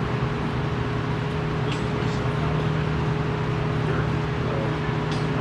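Steady machinery hum with a low drone and a higher steady tone, over even noise, with a few brief high-pitched sounds about two seconds in and again near the end.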